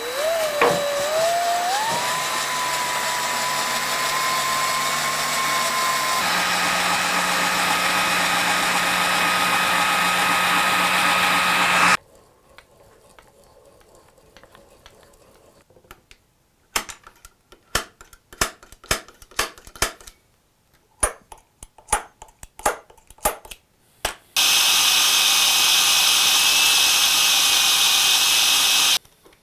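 A small electric power tool motor spins up with a rising whine and runs steadily, its tone changing about six seconds in, then stops at about twelve seconds. A run of sharp irregular taps and clicks follows, then the motor runs again for about five seconds and cuts off just before the end.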